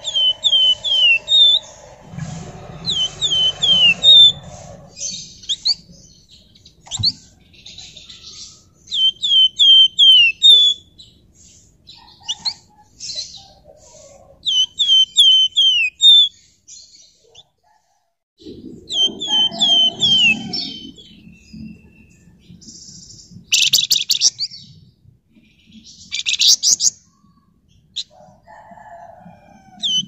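Caged flamboyan songbird singing: phrases of three or four quick, high, falling whistled notes, repeated every second or two with short gaps. Two short harsh rasping bursts, the loudest sounds, come about three-quarters of the way through.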